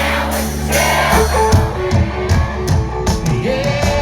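Live country band playing over a concert sound system: electric guitar over bass and a steady drum beat.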